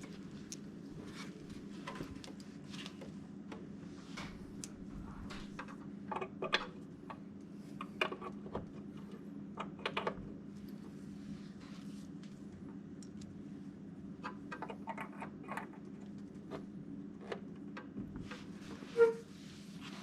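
Scattered small clicks and knocks of hands handling audio cables and equipment, plugging in the amplifier and speaker connections, over a steady low hum. One short, louder pitched sound comes near the end.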